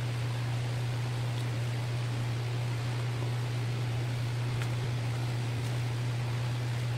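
Steady low machine hum under an even hiss, with a couple of faint ticks.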